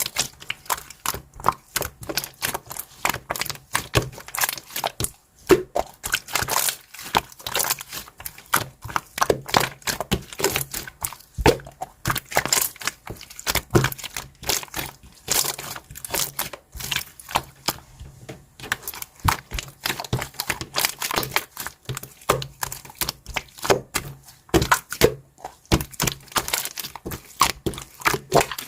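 Close-up crinkling and crackling with frequent sharp clicks and taps, several a second, irregular throughout.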